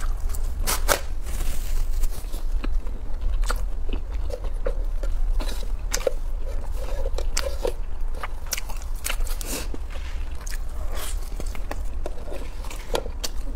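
Crunching bites into the crisp fried crust of a pan-fried vegetable pocket (cai hezi), with chewing between them, close to the microphone. A steady low hum runs underneath.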